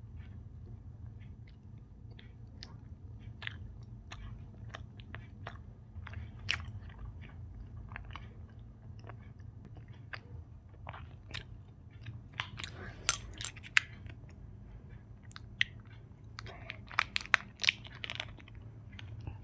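Close-miked chewing of Indian sweets: soft wet mouth clicks throughout, with two clusters of sharper, crunchier clicks in the second half. A steady low hum runs underneath.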